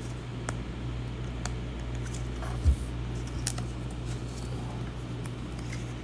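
Scattered light clicks over a steady low electrical hum, with one soft thump about two and a half seconds in.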